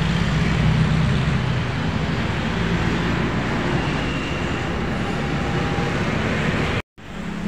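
Steady low engine hum with a rushing background noise, dropping out for a moment near the end.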